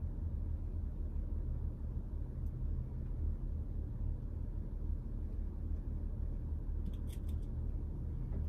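Steady low rumble in the background, with a few faint small clicks about seven seconds in as brass lock pins are set into a knob-lock cylinder.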